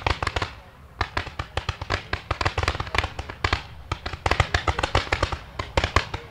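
A fireworks cake fires a rapid fanned volley of comets. It makes several sharp launch reports a second, with short lulls about a second in and again around four seconds.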